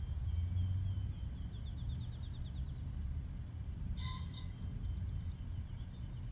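High-pitched animal calls: a rapid trill that speeds up during the first few seconds, then a short, clear call about four seconds in followed by a fainter trill, all over a steady low rumble.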